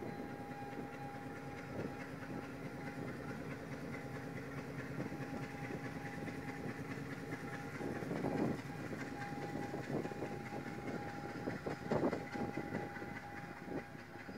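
Sri Lanka Railways M10A diesel locomotive hauling passenger coaches across a level crossing. The diesel engine runs steadily under a thin high tone, with louder clattering bursts of wheels on rail about eight and twelve seconds in.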